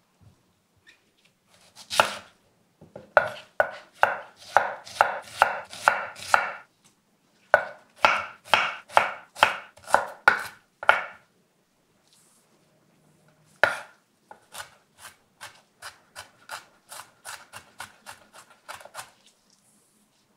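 Chef's knife chopping onion on a wooden cutting board: runs of sharp, even knife strikes at about two to three a second, broken by short pauses. Later the strikes come lighter and quicker, about four a second, as the onion is chopped finer.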